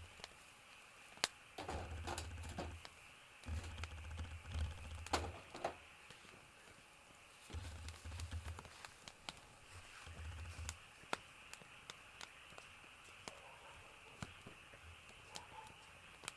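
Scattered light clicks and taps, with a few short stretches of dull low rumble.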